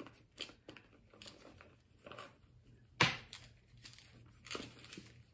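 Packaging being handled and torn open: a run of crinkling, tearing rustles, the sharpest about three seconds in.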